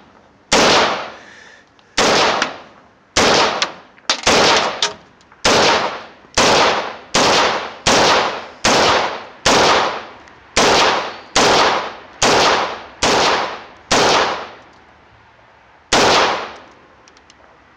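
AR-15 rifle fired semi-automatically: close to twenty shots at a steady pace of a little more than one a second, each with a short echo, and a pause of about a second and a half before the last shot.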